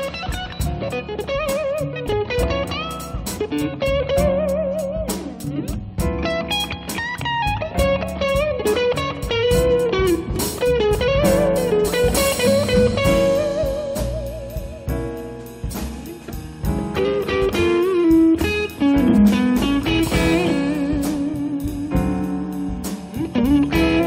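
Live jazz combo playing a slow blues-style instrumental break with no singing: a lead line with sliding, wavering notes over guitar, double bass and drums, the cymbals keeping a steady beat.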